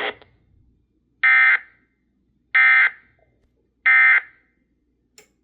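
Three short Emergency Alert System digital data bursts about 1.3 s apart on a NOAA Weather Radio broadcast: the end-of-message code that closes the severe thunderstorm warning.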